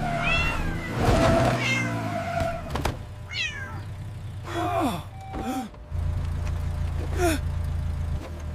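Cartoon cat meowing about five times, each call falling in pitch. A steady low car-engine hum comes in about six seconds in.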